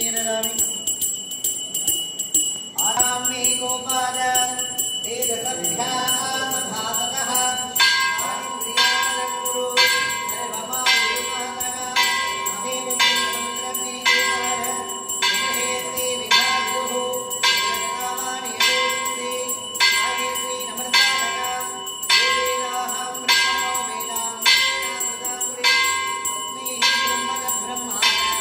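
Brass puja hand bell rung continuously during the lamp offering (aarti), with a regular beat of strokes about once a second joining in from about eight seconds in.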